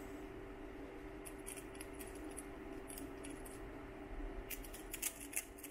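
Small clicks and ticks of a freshly printed plastic part being pressed and worked loose from a 3D printer's textured build plate, coming more often near the end, over a steady hum from the Creality printer.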